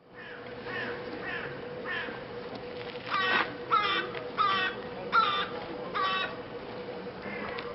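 Crow cawing repeatedly: three fainter caws, then a run of five louder caws, each less than a second apart.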